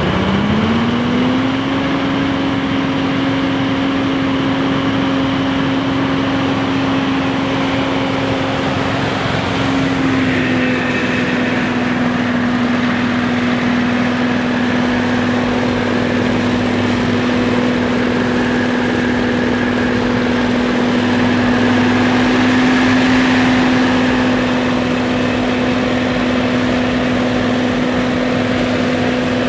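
Billy Goat Z3000 (formerly Hurricane Z3) stand-on leaf blower running at full blow: a steady whine over a loud rush of air. The pitch rises over the first couple of seconds, dips slightly about ten seconds in, then holds steady.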